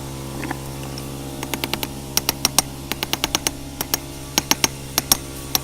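Steady hum of the running forge, with a run of sharp, irregular metallic clicks and taps starting about a second and a half in.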